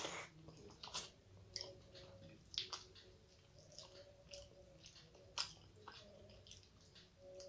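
Quiet eating by hand: fingers squishing rice on a plate, chewing and lip smacks, heard as scattered short wet clicks at uneven intervals.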